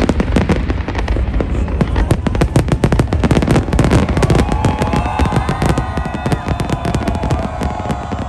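New Year fireworks going off in a dense, rapid run of bangs and crackles that thins out near the end. About halfway in, wavering high-pitched tones join in over them.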